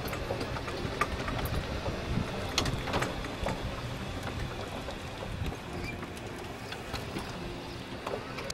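Golf cart riding along a paved cart path: a steady rumble from the cart and its tyres, with scattered short rattles and clicks.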